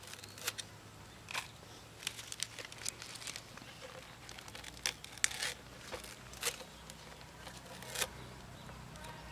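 Fresh green leaves being sliced by hand against a large knife blade: irregular crisp snips and crinkling, a dozen or so sharp cuts at an uneven pace.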